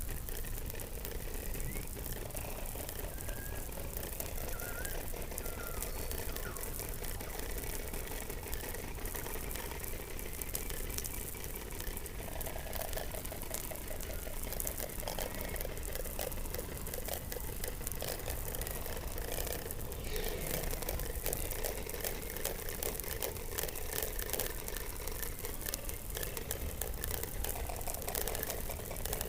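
Underwater sound from beneath Antarctic ice, picked up by a hydrophone: a continuous crackle of clicks over a low rumble, with a few faint short chirps early on and stretches of rapid pulsing near the middle.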